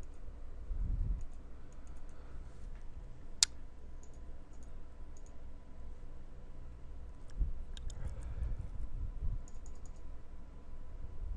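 Scattered soft clicks of a computer mouse and keys, with one sharper click about three and a half seconds in and a small cluster of clicks near the end, over low dull bumps on the desk.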